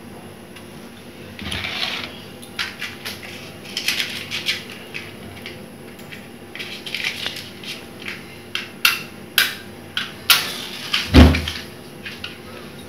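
Stainless-steel kitchen utensils being handled: a scattered run of clinks, clicks and knocks, with a heavy thump near the end.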